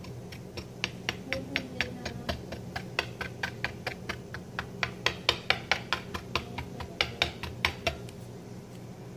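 A kitchen utensil clicking against a container in quick, even taps, about four a second, stopping shortly before the end, over a steady low hum.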